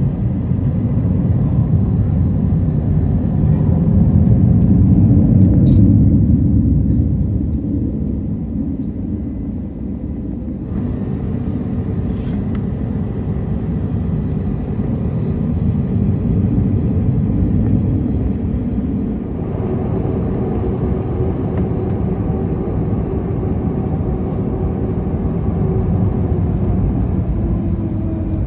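Steady low rumble and hum of an Airbus A321neo's CFM LEAP-1A jet engines at taxi power, heard from inside the cabin. The rumble swells louder about four to six seconds in, then settles.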